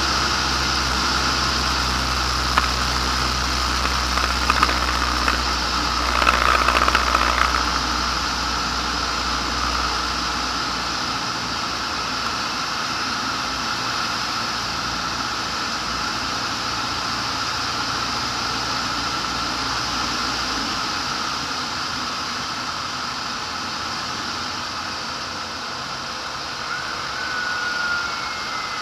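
Light aircraft's engine and propeller running steadily with wind rush, heard from the cockpit. A few short crackles come about a quarter of the way in. About two-thirds through, the low hum drops away and the sound gets slightly quieter.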